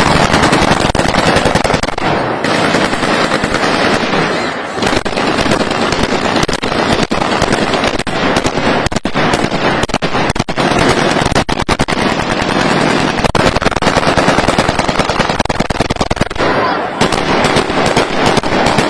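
Heavy celebratory gunfire: automatic weapons fired into the air in rapid, overlapping bursts, the shots running on almost without a break.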